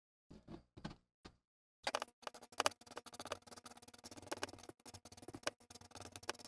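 A wooden stir stick mixing J-B Weld two-part epoxy on a taped patch of wooden tabletop. A few short soft sounds come first, then from about two seconds in a dense run of quick scratchy taps and scrapes as the stick works the paste.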